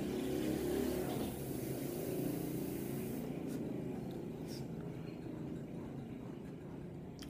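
A long, slow exhale of e-cigarette vapour after a drag on a box mod, as a soft breathy hiss that fades over several seconds, over a steady low background rumble.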